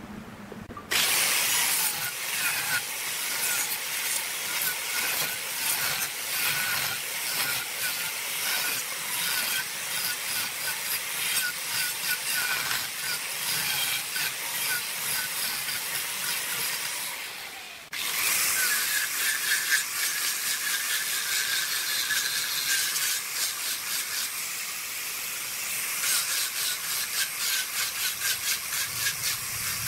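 Electric angle grinder with a sanding disc running against the wooden rim of a turned vase: a steady whine with rough, hissing abrasion of wood. It starts suddenly about a second in, cuts out for a moment a little past halfway, and starts again.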